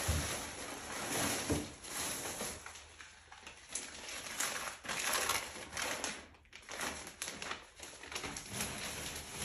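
Plastic shopping bag rustling and crinkling in irregular bursts as items are rummaged for and pulled out of it.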